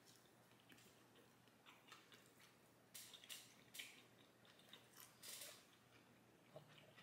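Very faint chewing of a bite of a barbecue tri-tip slider on a toasted bun: a few soft crunchy clicks, spread out between about two and five and a half seconds in.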